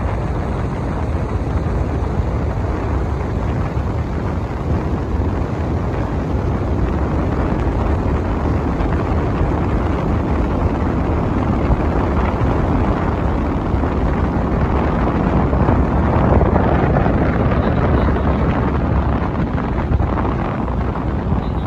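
Steady wind buffeting the microphone on the open front deck of a moving ferry, over the rush of water and the boat's engines.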